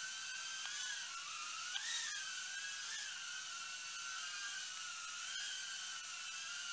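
FuryBee F36 mini quadcopter's small motors and propellers whining in flight, the pitch wavering up and down as the drone is steered, with a brief tick about two seconds in.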